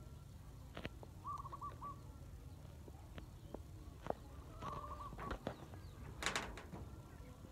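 A bird repeating a short rippling call about every three and a half seconds, over a low steady rumble. Scattered sharp taps sound through it, and the loudest is a quick cluster of clicks a little after six seconds in.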